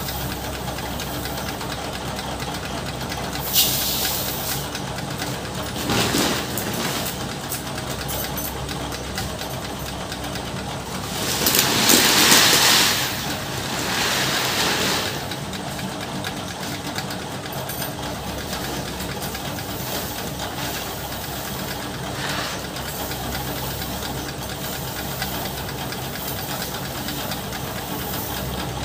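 Paddy rice seed grain rustling and pouring as it is scooped and handled by hand, in several short hissing bursts, the longest and loudest about twelve seconds in. Under it runs a steady machine hum.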